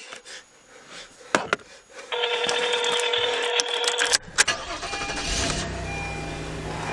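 Phone ringback tone heard through a smartphone's speaker: a few clicks, then one steady ring lasting about two seconds. A low steady car engine hum comes in about five seconds in.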